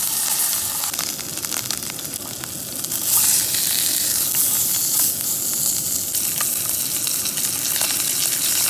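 Block of beef round sizzling in hot olive oil in a frying pan as its outside is seared, the last browning step for a roast beef already cooked through in a hot-water bath. The sizzle is steady and gets louder about three seconds in.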